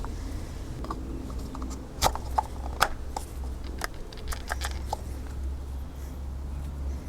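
Parts of an oil filter housing being handled: a run of light, sharp clicks and taps, the loudest about two seconds in, over a low steady hum.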